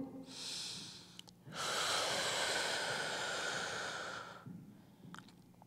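A woman's audible deep breathing while holding a yoga stretch. A short, soft breath comes in the first second, then a long, louder breath lasts about three seconds.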